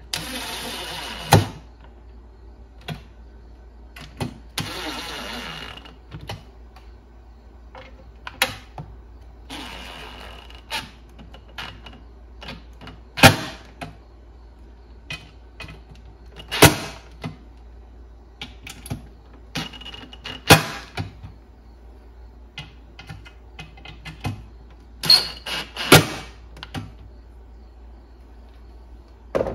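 DeWalt cordless drill/driver running in several short bursts, driving the mounting screws of a subwoofer a little at a time to seat it evenly. Sharp clicks and knocks between the bursts, the loudest of them single knocks.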